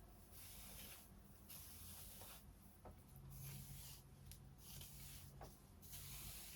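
A big comb drawn through loosely curled hair, about five faint brushing strokes, each under a second, as the curls are combed out into beach waves.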